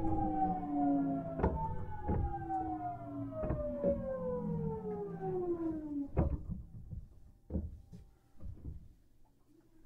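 Nankai 1000 series GTO-thyristor VVVF inverter whine falling steadily in pitch as the train brakes, with wheels knocking over rail joints. The inverter tone cuts off about six seconds in, a few slower wheel knocks follow, and it goes nearly quiet near the end as the train comes to rest.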